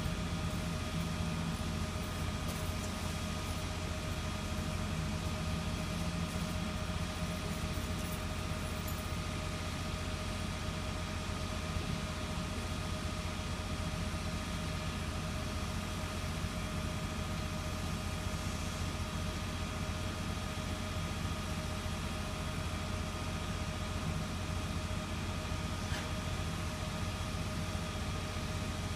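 Diesel locomotive idling steadily: a low engine hum with a constant whine above it, no change in speed.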